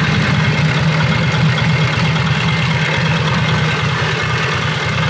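1942 Harley-Davidson UL's 74-cubic-inch flathead V-twin idling steadily and quiet, freshly restored and warmed up.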